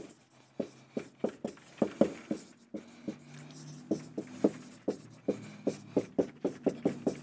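Dry-erase marker writing on a whiteboard: a run of short, sharp strokes and taps, about three or four a second, one for each stroke of the letters.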